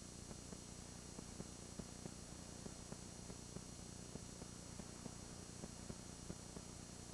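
Faint recording noise: a steady low hum and hiss, with soft irregular ticks a few times a second and no distinct sound event.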